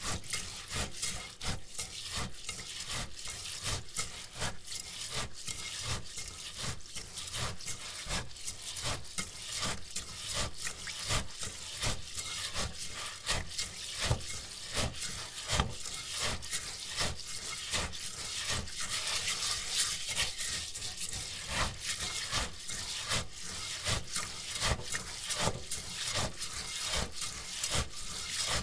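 Uncooked rice being washed by hand in a bowl: a steady run of grainy rubbing and swishing strokes as the grains are scrubbed together in water.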